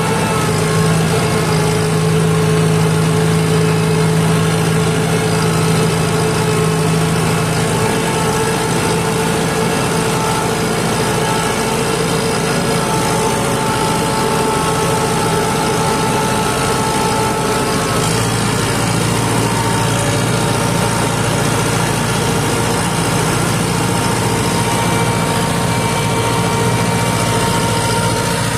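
New Holland farm tractor's diesel engine running steadily as the tractor drives through a flooded swamp, heard from the driver's seat. The engine note drops a little about two-thirds of the way through.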